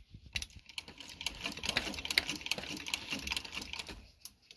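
Hand-cranked fur sewing machine stitching fur: a fast, even run of light mechanical clicks from the needle mechanism that stops about four seconds in.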